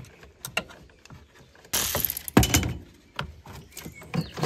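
Hand tools and car parts being handled while the Renault Zoe's 12V battery is taken out: scattered clicks and knocks, a brief scrape about two seconds in, then a heavy knock.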